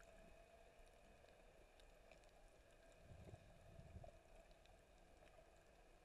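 Near silence: faint muffled ambience from a camera held underwater, with scattered faint ticks and a brief low rumble about three seconds in.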